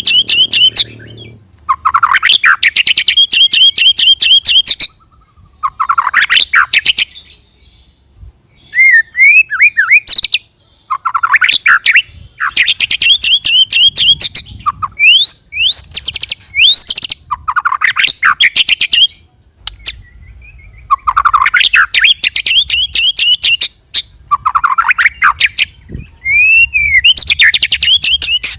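White-rumped shama singing in about ten loud bursts with short pauses between them. Most phrases open with a low rising note and break into a rapid rattling roll of fast repeated notes, mixed with quick whistled upslurs. This is the rolling 'ngerol' song used as a lure to set other shamas singing.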